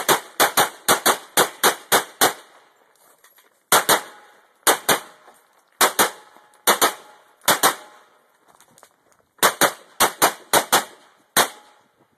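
Semi-automatic pistol firing a USPSA stage: a rapid string of about ten shots, then shots in quick pairs roughly a second apart, then another fast cluster near the end.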